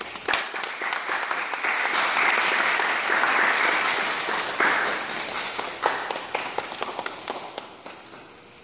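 Audience applauding, starting suddenly and dying away over the last couple of seconds.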